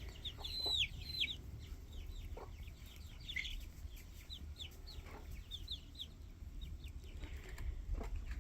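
Young chicks, about a month old, peeping: many short high-pitched falling peeps, a dense run of louder ones in the first second or so, then scattered peeps throughout over a low steady rumble.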